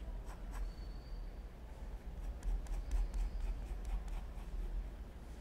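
Pencil drawing on paper: a string of short scratchy strokes as curved outline lines are sketched.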